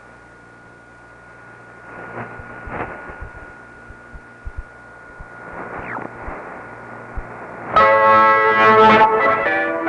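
Shortwave radio reception on a Realistic DX-302 receiver: faint music under hiss, static crackles and a steady whistle. About eight seconds in, loud brass music suddenly comes in strong and clear.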